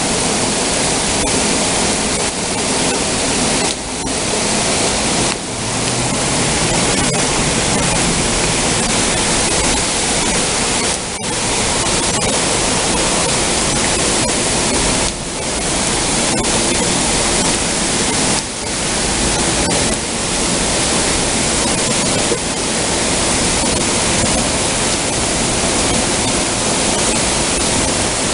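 Heavy thunderstorm rain pouring down in a steady, loud hiss, with a few brief dips in level.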